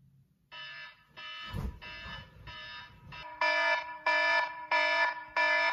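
iPod alarm tone ringing: a repeating multi-note beep about one and a half times a second, starting about half a second in and growing louder about three seconds later.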